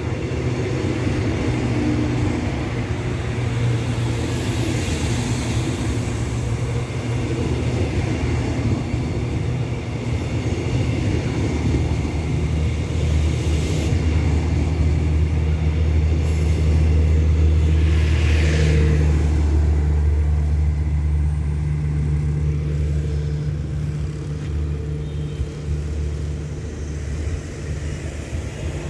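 Diesel engine of a passenger train running with a steady low hum, louder in the middle.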